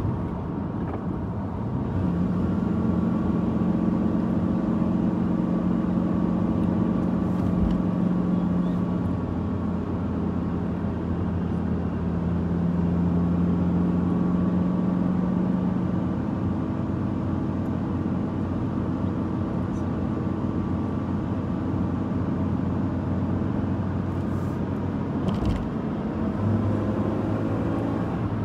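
Car engine and tyre noise heard from inside the cabin while driving: a steady hum whose pitch shifts a few times as the speed changes.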